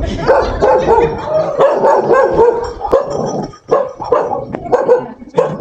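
A dog barking over and over, in a quick run of barks.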